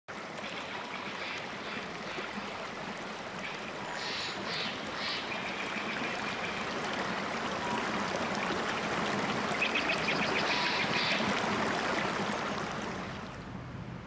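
Stream rushing and splashing steadily, with two short runs of high chirping over it; the water fades out near the end.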